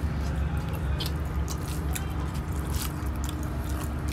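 Close-up eating sounds: rice and meat curry squished and mixed by hand on a steel plate and eaten, with many irregular wet clicks, over a steady low rumble.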